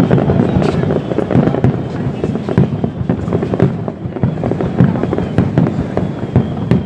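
Fireworks display in full barrage: aerial shells bursting in a dense, unbroken run of bangs and crackles, deep and rumbling rather than sharp.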